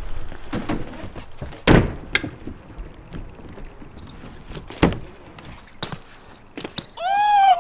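BMX bike riding on a concrete skatepark: tyre rolling noise, with two loud sharp thuds about two and five seconds in as the wheels hit the ground, and a few lighter knocks. A high, wavering pitched tone starts near the end.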